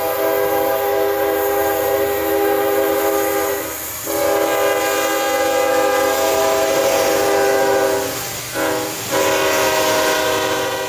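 Locomotive air horn sounding a chord of several notes in long blasts. There is a short gap about four seconds in, then near the end two quick breaks with a short blast between them.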